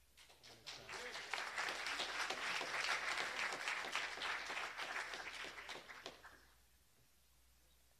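Audience applauding: the clapping swells over the first second or so, holds, then dies away about six and a half seconds in.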